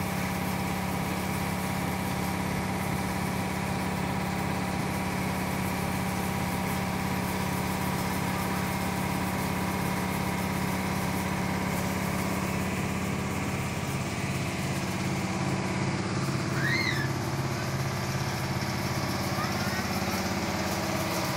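Rice mill machinery running: a large engine hums steadily at constant speed, with a fixed low drone and several steady higher tones.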